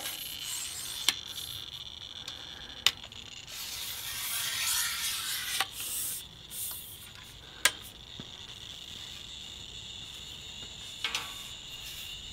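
A pole with a radiation detector taped to its end is handled and reached over a fence: a rubbing, scraping noise lasting a couple of seconds, starting about three and a half seconds in, and a handful of isolated sharp clicks.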